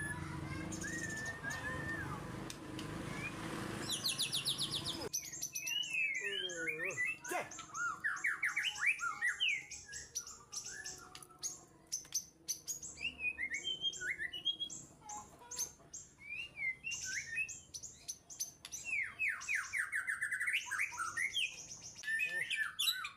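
Songbirds singing in repeated bursts of quick rising and falling chirps and whistled phrases: a young bird singing back against an adult.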